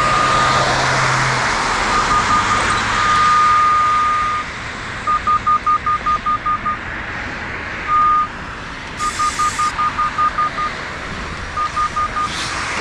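Radiodetection RD8200 cable and pipe locator receiver sounding its locate tone over a buried ductile iron water main. A single high beep alternates between steady stretches of up to about a second and a half and runs of quick pulses, about five a second, over a steady background rush.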